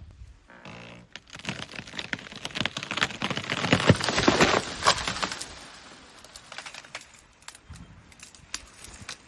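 Dense crackling and snapping of plant stalks and leaves being torn apart by an elephant. It builds to a peak about four seconds in, then thins to scattered snaps.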